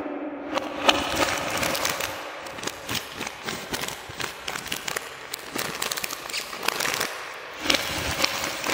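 Plastic candy bag crinkling and crackling as it is cut open with scissors, then wrapped bubble-gum pieces tumbling out of a bag onto a wooden tray near the end. A dense, uneven run of crackles and clicks.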